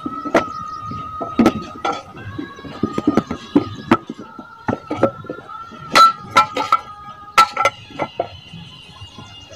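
Sun-dried clay bricks knocking and clinking as they are handled and set down, a string of irregular sharp knocks, over a steady high tone.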